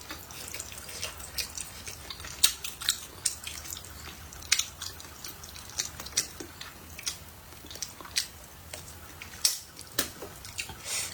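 A person eating close to the microphone: irregular wet clicks and smacks of chewing, with a few louder smacks scattered through.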